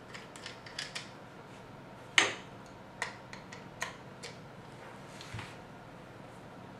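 Scattered small clicks and taps of a screwdriver and rifle parts being handled while a Ruger 10/22's action is screwed back into its stock, with one sharper knock about two seconds in.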